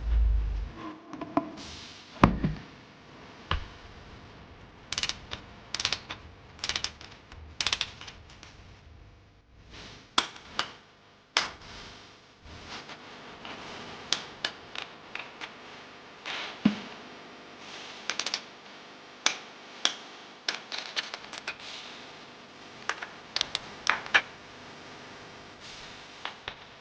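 Workshop assembly sounds: irregular sharp clicks and taps of parts and hand tools being handled, with a heavier low thump at the start and another about two seconds in.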